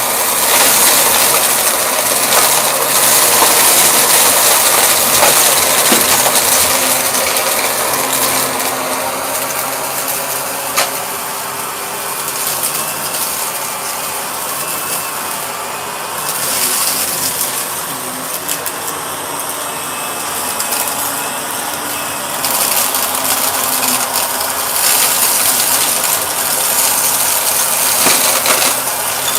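Purple Shark vacuum cleaner running continuously, a loud steady rush with a faint motor hum under it. Its high hiss grows and fades every few seconds.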